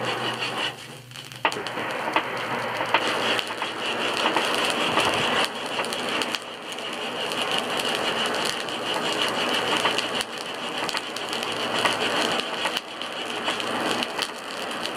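Hardwood lump-charcoal fire in a blacksmith's forge crackling and rushing under the bellows' air blast, with many sharp pops from the burning coals and sparks. The blast briefly drops about a second in.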